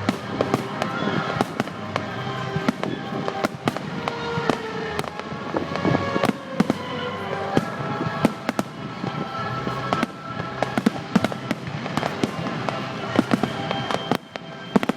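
Fireworks display going off: many sharp bangs and crackles in quick, irregular succession, with music playing along.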